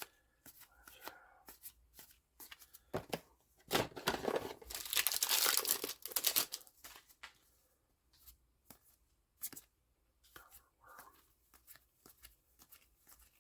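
A trading-card booster pack's wrapper being torn open: a couple of seconds of loud tearing and crinkling about four seconds in, among light clicks and rustles of cards being handled.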